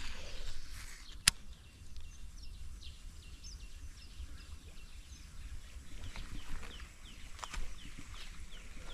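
A small bird chirping in a run of short, high, falling notes, faint over a low rumble, with one sharp click about a second in.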